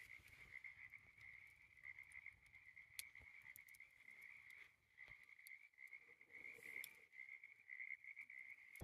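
Faint, steady high-pitched night chorus of calling animals, pulsing slightly, with a few faint ticks scattered through it.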